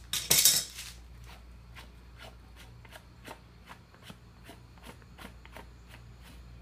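Plastic parts of a sprinkler head handled and pulled apart with a short scraping rattle just under a second in, then a steady run of light ticks, about two or three a second.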